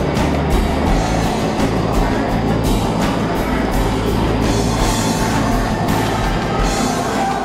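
Loud music with a deep, sustained drone and drum-like hits recurring throughout.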